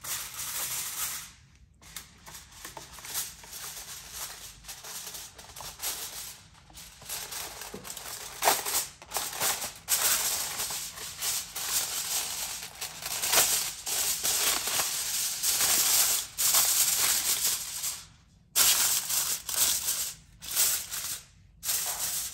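Aluminium foil crinkling and rustling in irregular bursts as it is pressed and crimped down around the edges of a baking dish, growing louder in the second half with a few brief pauses.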